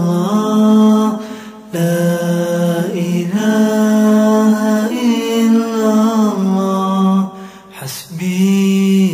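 A single voice chanting an Islamic dhikr in long, melodic held notes. The phrases break off briefly about one and a half seconds in and again about three-quarters of the way through.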